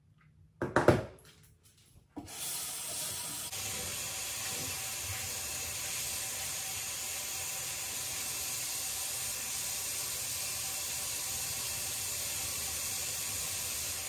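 A brief loud knock about a second in, then a bathroom faucet turned on, running steadily into a glass vessel sink from about two seconds in.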